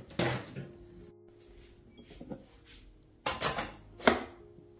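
Scattered knocks and clinks of kitchenware being handled, with a cluster of them a little past three seconds in and the sharpest click about a second before the end. Soft background music plays underneath.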